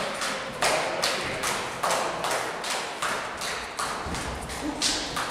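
A run of sharp knocks or claps, about two a second, each with a short ringing tail. It fades a little near the end.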